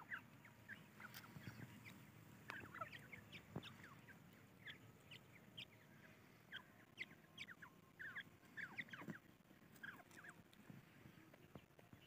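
Francolin chicks peeping: many short, high chirps scattered irregularly, some in quick pairs.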